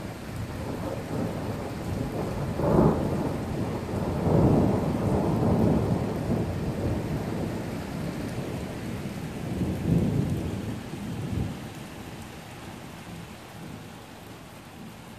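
A long roll of thunder rumbling, swelling about three seconds in, again soon after, with a last peak about ten seconds in before it dies away, over steady rain.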